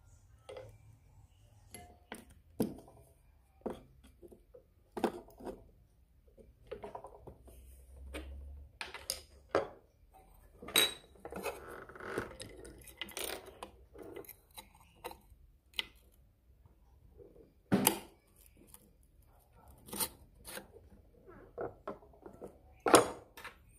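Scattered light metal clicks and clinks from parts of an industrial single-needle sewing machine being handled and fitted around the needle plate, irregular, with a sharper knock partway through and another near the end.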